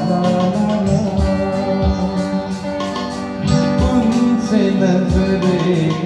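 Music playing: a song with a singing voice and guitar over low drum beats.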